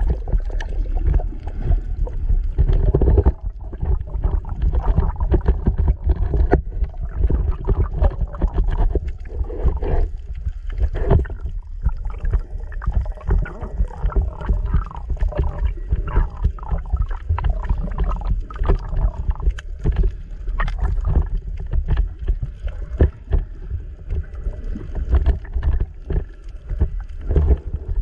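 Underwater sound through a GoPro's waterproof housing: a muffled, fluctuating low rumble of moving water, with many small clicks and gurgles throughout.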